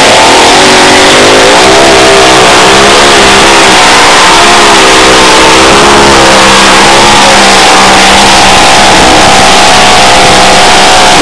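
Mini rod pulling tractor's engine at full throttle, very loud, as it pulls a weight-transfer sled. Its pitch climbs over the first two seconds, wavers up and down through the middle of the pull, and holds steadier near the end.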